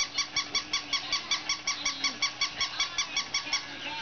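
Battery-operated toy chihuahua giving rapid, evenly spaced electronic yaps, about five a second, that stop about three and a half seconds in.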